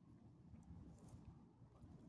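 Near silence: a faint low rumble of handling and wind on a phone microphone, with a couple of faint ticks.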